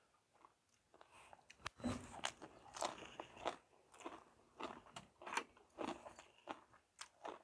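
Close-up chewing of a mouthful of raw cabbage leaf wrapped around green papaya salad: irregular crisp crunches that begin about two seconds in and keep coming.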